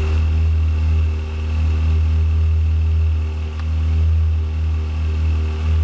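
Ferrari F355's 3.5-litre V8 idling steadily.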